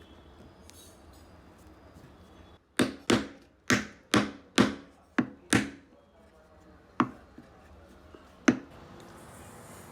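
A series of sharp wooden knocks, like mallet blows on wood: seven in quick succession, about two a second, then two more spaced apart.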